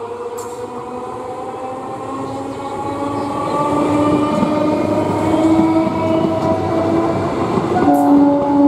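Electric multiple unit (EMU) local train passing close by: the whine of its electric traction motors rises slowly in pitch over a rumble of wheels on rails, growing louder. Near the end a steady horn tone comes in.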